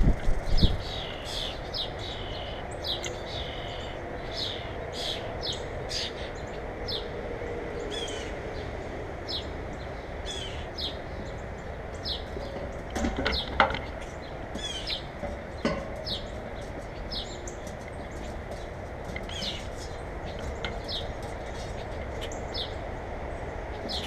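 Small birds chirping over and over in short, downward-sliding calls over a steady background hiss, with a few sharp knocks around the middle.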